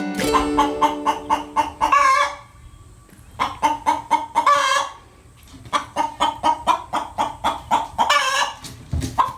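Guineafowl calling: bouts of quick repeated harsh notes, about five a second, each bout ending in a longer, louder call, four bouts with short pauses between them.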